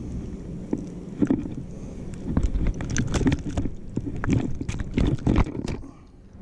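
Irregular knocks, rubs and flaps close to the microphone as a spotted seatrout is held up and turned in the hand, over a steady low hum; the knocking stops shortly before the end.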